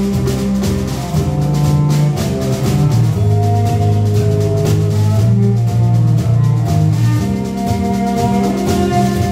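Live band music: acoustic guitar, cello, electric bass and drum kit playing together, with a steady beat and a prominent bass line.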